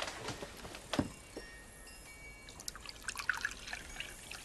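Liquid being poured into a vessel from about halfway in, with a single knock about a second in.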